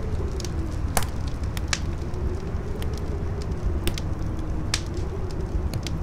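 Campfire crackling with irregular sharp pops, over a steady low rumble of strong wind and a faint wavering howl that dips and rises.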